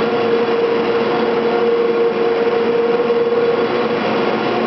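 Cable car engine house winding machinery running, the big sheave wheels hauling the steel cables: a steady, loud mechanical hum with a held whine that fades slightly about three and a half seconds in.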